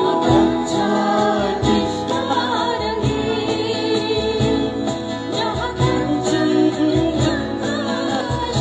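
Music: a song with singing over instrumental accompaniment and a steady beat.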